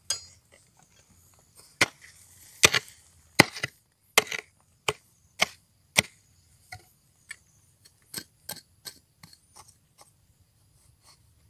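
A short wooden-handled hand hoe chopping into stony soil, with a dozen or more sharp strikes roughly every half second to second. The strikes are heaviest in the first half and turn into lighter taps and scrapes toward the end.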